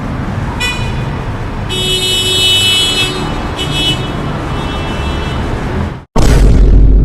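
Street traffic sound effect: a steady rumble of passing cars with car horns honking, a short toot about half a second in, a long blast from about two to three seconds, and another brief honk near four seconds. It cuts off just after six seconds and a different, louder effect begins with a falling hiss over a deep rumble.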